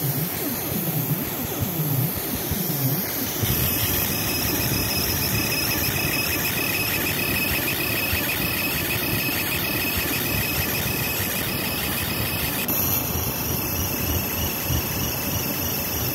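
Laser marking machine engraving lettering into a shotgun receiver: a steady high-pitched whine and buzz from the scanning head over the rush of the fume extractor. The tone shifts about three and a half seconds in and again near the end as the marking pattern changes.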